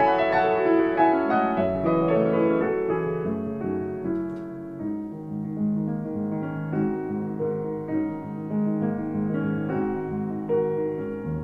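Background solo piano music, a melody of struck notes over lower chords, growing softer about four seconds in.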